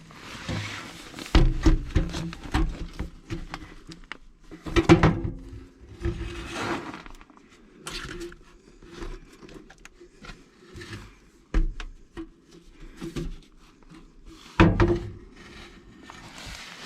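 Irregular knocks, thuds and scraping from hands-on work on a water heater install, with a few louder thuds spread through.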